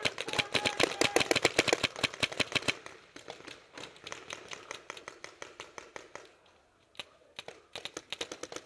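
Paintball markers firing rapid strings of shots, about ten a second, loud for the first few seconds, then fainter volleys, a short lull, and a few more scattered shots near the end.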